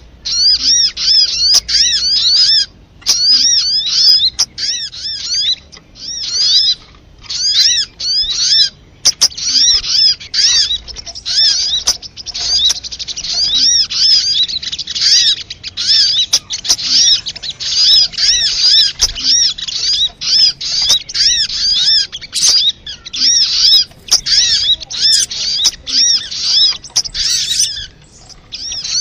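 Recorded calls of a sogon (sogok ontong) bird used as a lure: fast, high chirping trills of repeated arched notes, coming in runs a second or two long with brief pauses, and a few sharp clicks among them.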